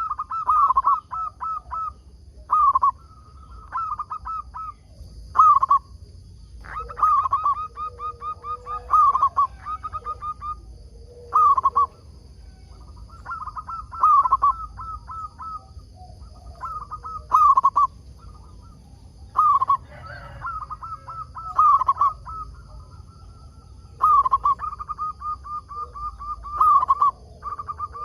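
Zebra dove (perkutut) cooing: bursts of rapid, clipped coos repeated every two to three seconds.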